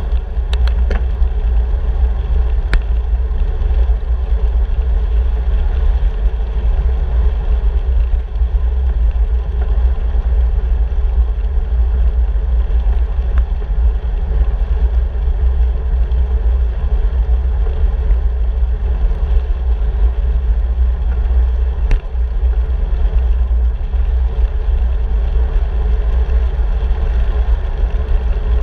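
Wind buffeting the microphone of a handlebar-mounted camera on a moving bicycle: a steady heavy rumble with road noise beneath it, and a few sharp ticks, the clearest about three seconds in and about 22 seconds in.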